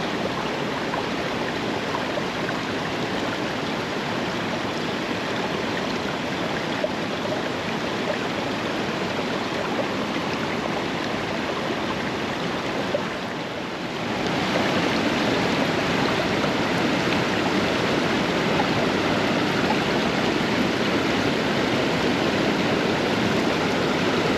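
Stream water rushing steadily. About halfway through it dips for a moment, then comes back louder and brighter.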